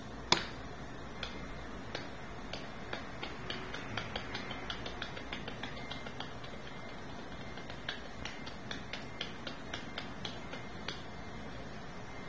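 A run of light, irregular clicks and ticks, with one sharp, louder click just after the start, over a faint steady background.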